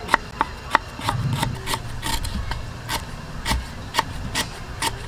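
Large kitchen knife slicing a lemongrass stalk into thin rings on a wooden chopping board: a steady run of crisp cuts ending in knocks on the wood, about three a second.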